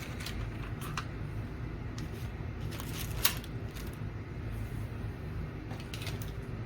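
Light clicks and rustling from sorting through loose chips and small parts, over a steady low hum. The sharpest click comes about three seconds in.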